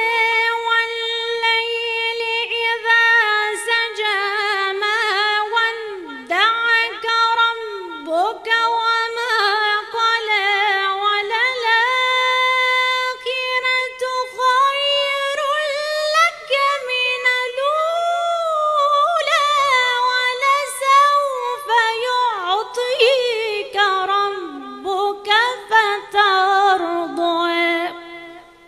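A woman's solo voice reciting the Quran in a melodic Moroccan style, drawing out long held notes and ornamented runs that bend up and down in pitch. The voice stops near the end.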